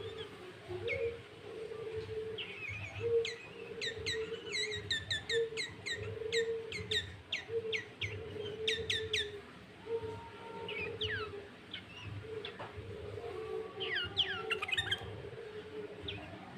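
Sooty-headed bulbul (kutilang) singing with cucak ijo (greater green leafbird) fill notes: clusters of quick, sharp, falling chirps. Underneath, a low note repeats about once a second.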